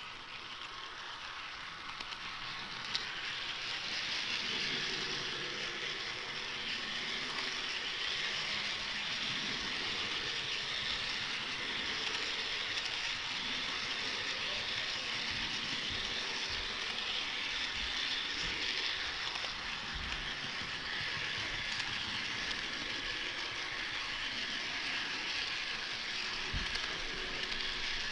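HO-scale model train running along the track, heard from a camera riding on it: a steady hissy rolling noise of small metal wheels on the rails and the drive running, with a few soft knocks.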